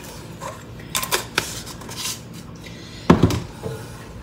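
An adobo seasoning shaker shaken over raw chicken, a few quick shakes about a second in, then a single louder knock about three seconds in as a container is put down on the counter.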